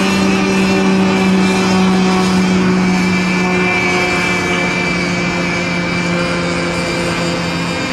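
Small racing engines of radio-controlled model boats running at high, steady revs, a continuous buzzing whine.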